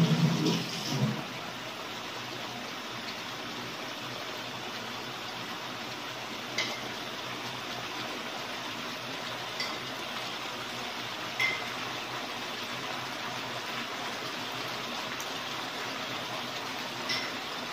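Clams in a soy-sauce and chilli mixture sizzling in a steel wok over a low flame: a steady hiss with a few sharp pops spread through it. A short muffled sound in the first second.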